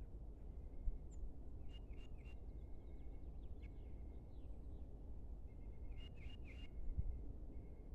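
Faint birdsong in an open field: two short phrases of high chirps and thin whistled notes, one about a second and a half in and one about six seconds in, over a low steady rumble of outdoor background noise.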